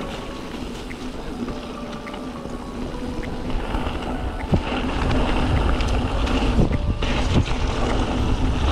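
Wind rushing over the microphone, with the tyres rolling over a dirt trail during a fast mountain-bike descent. It gets louder about five seconds in, with a few sharp knocks from bumps.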